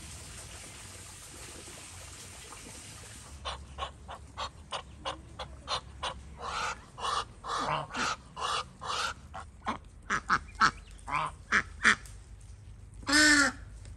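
Domestic white geese calling: after a few seconds of low background, a rapid run of short honks and cackles, ending with one longer, loud honk near the end.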